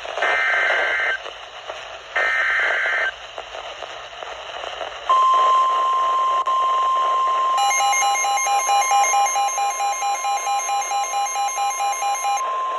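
NOAA Weather Radio alert: two short screeching bursts of the SAME digital header, then the steady Weather Radio warning alarm tone begins about five seconds in. From about seven seconds in, a pulsing alarm beep sounds over it about four times a second, then stops shortly before the steady tone ends.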